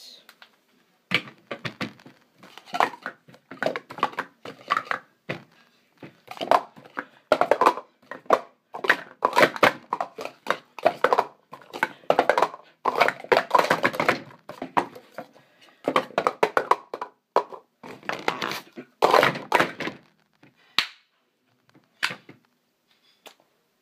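Speed Stacks plastic sport-stacking cups clacking and knocking rapidly as they are stacked up and down on a stack mat during a timed cycle, a dense clatter that starts about a second in and stops shortly before the end.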